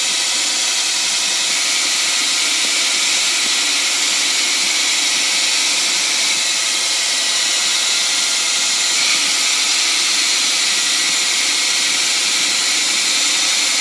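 Grizzly G0602 benchtop lathe, converted to CNC, running steadily during a test program: a constant whirring hiss that does not change through the stretch.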